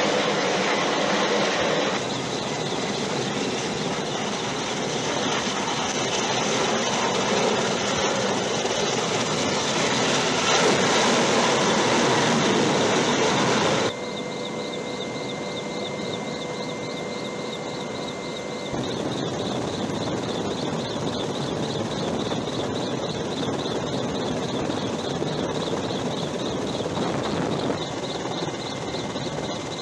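Steady roar of F-35B jet aircraft noise at sea, changing abruptly at edits about two, fourteen and nineteen seconds in. Between fourteen and nineteen seconds a steady whine sits on top of the roar.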